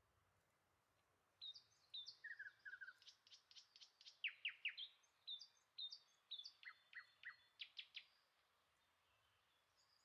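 A songbird singing faintly: a varied string of short, high chirps and quick downward-sweeping notes that starts about a second and a half in and runs for several seconds.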